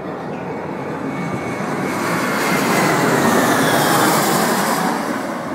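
Jet airliner flying low overhead. Its engine noise swells to a peak about three seconds in and then begins to fade, with a falling whine as it passes.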